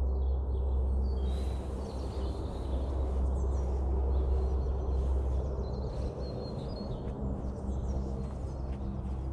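Small birds chirping over a steady low rumble, which eases off a little past halfway.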